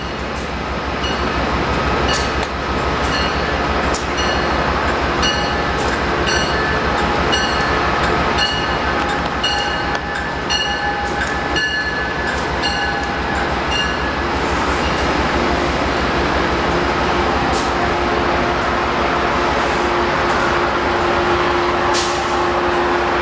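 Passenger train passing close, its coaches rumbling over the rails with regular clicks from the wheels over rail joints, a little more than one a second. In the second half a steady hum comes in as the locomotives at the rear draw near.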